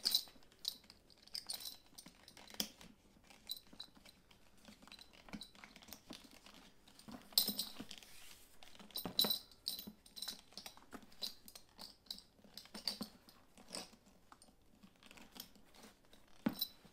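Handling of a veg-tan leather saddlebag as its strap is fed through a metal buckle: scattered soft leather rubs and creaks with small metal clinks, and a few sharper taps about halfway through.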